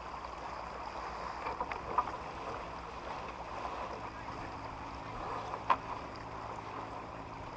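A small yacht under way: a steady wash of water and wind noise with a low, even hum beneath it, and a couple of light knocks, one about two seconds in and one near the end.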